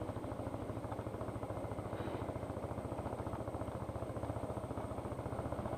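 Motorcycle engine running steadily at low speed, its firing heard as an even, rapid pulsing.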